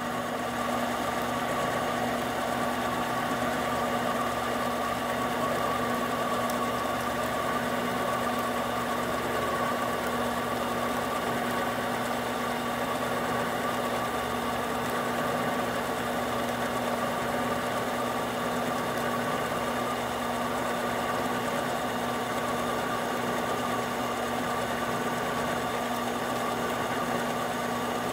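Harbor Freight 7x10 mini lathe running at a steady speed while taking a turning cut on a metal bar, giving a constant machine hum with a steady whine.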